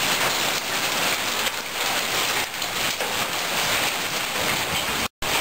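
Heavy rain pouring steadily and drumming on surfaces in a storm, with a split-second dropout near the end.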